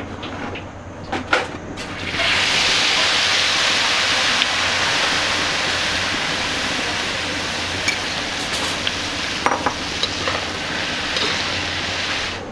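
Hot oil suddenly starts sizzling loudly about two seconds in, as the whisked goose-egg omelet mixture is poured into it, then keeps up a steady hiss as the omelet deep-fries and puffs up. A few light knocks of kitchen utensils come before it.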